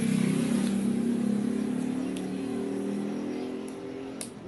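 A motor vehicle's engine running with a steady hum that fades near the end. A few light clicks come from a soft silicone phone case being pressed onto a phone.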